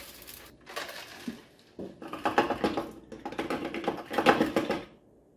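Coarse dishwasher salt poured through a funnel into a Beko dishwasher's salt reservoir: a few light knocks, then a rapid pattering of crystals for nearly three seconds that stops abruptly near the end.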